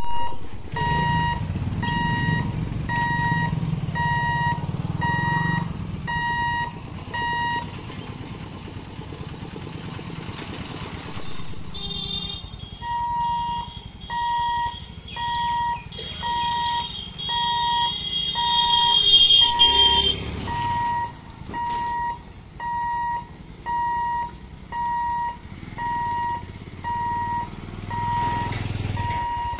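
Level-crossing warning buzzer beeping about once a second, one high beep at a time, with motorcycle engines running as riders cross. The beeping stops for a few seconds, then starts again, and a high, slightly rising whine sounds for several seconds while the boom barriers come down.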